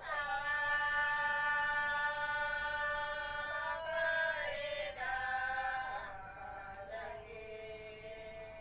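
A voice singing long held notes: the first is held steady for nearly four seconds, then shorter notes shift in pitch, growing quieter from about six seconds in.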